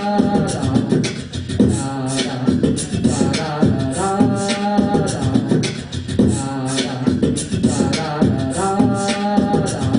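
Live vocal looping: a looped beatboxed beat with a layered sung vocal phrase that repeats about every two and a half seconds.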